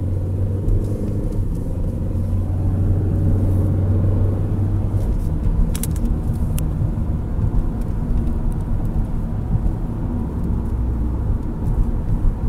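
Car driving, heard from inside the cabin: a steady low engine hum and road rumble. The hum eases about five seconds in, leaving a rougher tyre and road rumble.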